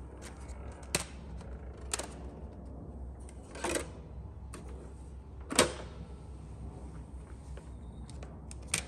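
Panasonic RX-D10 boombox's top-loading CD lid and disc being handled: a series of plastic clicks and knocks, with the loudest knock about halfway through as the lid is snapped shut. A faint low hum runs underneath.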